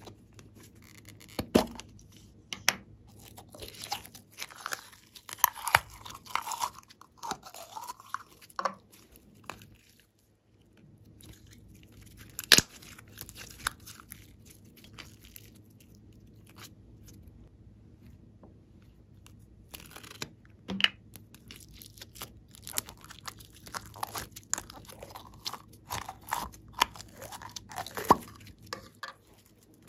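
Slime and clay squeezed and stretched by hand, giving irregular sticky clicks and small pops, with a short lull about a third of the way through.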